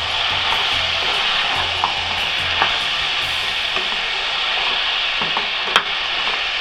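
Crab pieces in onion-tomato masala sizzling in a hot pan as they are stirred. Now and then a utensil clicks against the pan, sharpest a little before the end.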